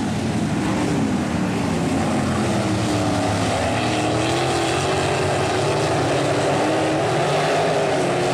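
Several sprint cars racing on a dirt oval, their V8 engines running hard in a continuous loud drone, the pitch rising and falling as they go on and off the throttle through the turns.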